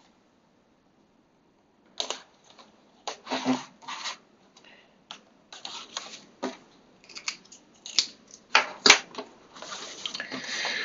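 Silent for about two seconds, then a cardboard phone-case box being opened by hand: irregular clicks, taps and short scrapes as a small tool slits the seal and the box is handled, with a longer rustling slide near the end as the box is tilted open.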